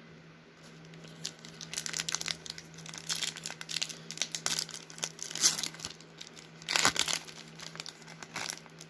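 Foil wrapper of a Topps baseball card pack crinkling and tearing as it is handled and opened, in a run of irregular crackles starting about a second in, loudest twice near the middle and later.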